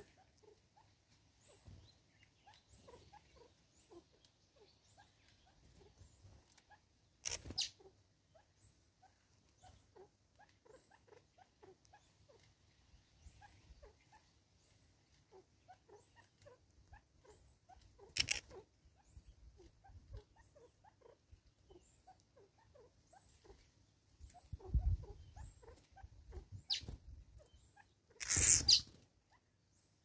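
Small birds chirping and twittering, with a high thin call repeating about once a second. Three short, louder splashing flutters of a bird bathing in shallow water, the last near the end. A brief low rumble comes just before it.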